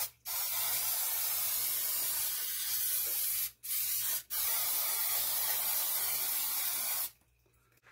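Aerosol cooking spray hissing from the can onto a baking sheet in three bursts: a long spray of about three seconds, a short one, then another long spray that stops near the end.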